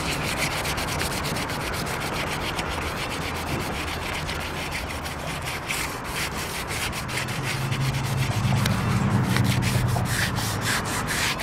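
Sandpaper rubbed by hand in quick back-and-forth strokes over the painted metal edges of a van's rear brake-light opening, scuffing loose dirt. A low hum swells in the background about two-thirds of the way through.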